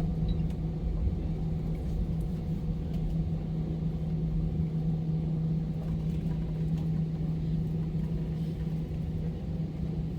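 Steady cabin hum of an Airbus A320 parked after landing: the ventilation and aircraft systems make a constant low drone with one steady low tone.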